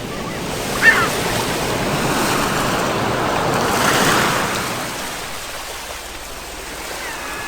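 Sea waves washing onto the shore, the surf swelling to a peak about four seconds in and then receding. A brief high squeak sounds about a second in.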